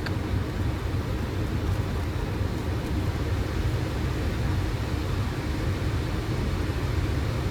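Boeing 737 flight-deck noise during the landing rollout: a steady, even low rumble of engines and airflow with a light hiss over it, as the airliner decelerates on the runway after reverse thrust has been selected.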